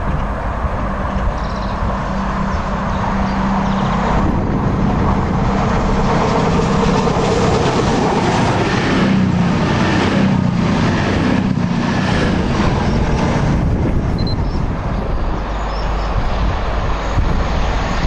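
Express passenger train passing close at speed. A steady engine hum builds as it nears, then the wheels click quickly over rail joints as the carriages go by, around ten to thirteen seconds in.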